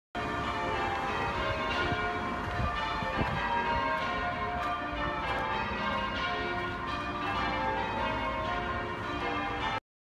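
Church bell ringing continuously, many overlapping tones sounding together; the sound cuts off suddenly near the end.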